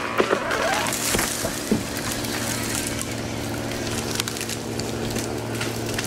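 Wood cracking and splintering as a tree is felled, with a rush of high hiss about a second in. Under it a steady low motor hum runs on after the cracks die away.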